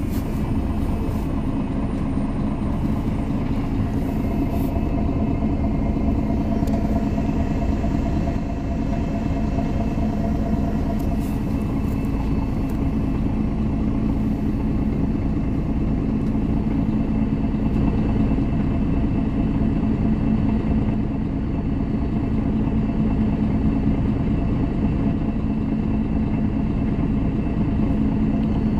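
MAN NG 313 articulated city bus under way, heard from inside: its diesel engine drones steadily under continuous road and running noise.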